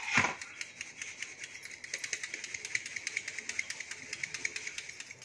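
Fine-mesh steel flour sieve being shaken over a steel plate, its rim rattling against the plate in a fast, even rhythm as ragi flour sifts through.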